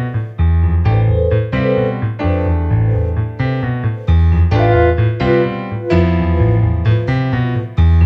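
Electric piano keyboard played in chords over a deep bass line, a new chord struck every half second to a second.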